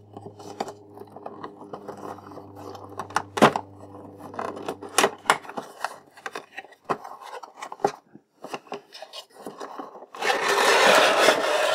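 Cardboard and plastic toy packaging being handled and opened: scattered sharp clicks and crinkles as the box's taped side flap is worked open, then, about ten seconds in, a loud sliding scrape as the plastic blister tray is drawn out of the cardboard box.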